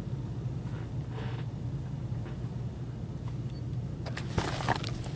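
Steady low hum, with a faint rustle about a second in and a few soft clicks near the end as a card is handled.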